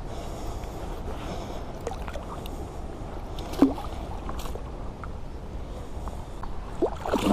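Water lapping and sloshing against a float tube while a hooked pike thrashes at the surface close by, with one sharp splash about halfway through and a quick run of splashes near the end.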